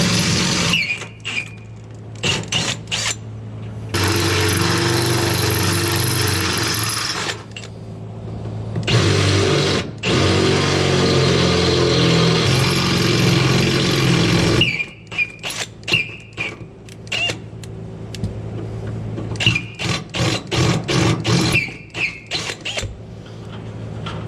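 Electric drill boring holes with a sharp bit: the motor runs in long steady stretches, then in a string of short trigger bursts near the end. A few brief high squeaks are heard along the way.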